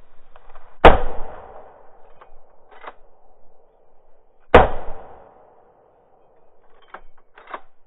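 Two shots from a scoped hunting rifle, about four seconds apart, each followed by an echoing tail that dies away over about half a second. A few faint short clicks come between the shots and near the end.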